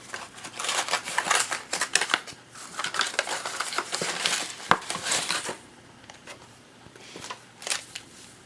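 A cardboard box of baseball cards and its wrapping being opened by hand: a dense crackling rustle of packaging, which eases off after about five and a half seconds into a few scattered clicks.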